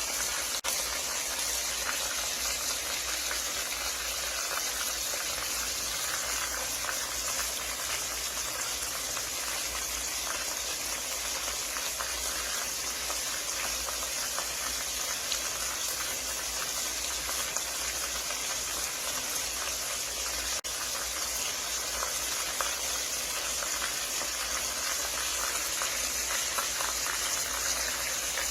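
Hot oil sizzling in a frying pan as food fries: a steady hiss thick with small crackling pops, broken twice by a momentary dip.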